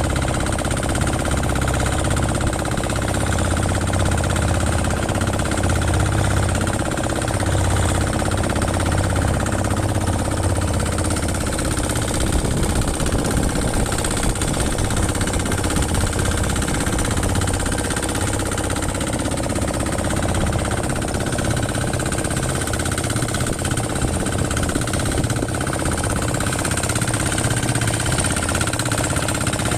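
An engine running steadily, a low rumble that holds an even pace throughout.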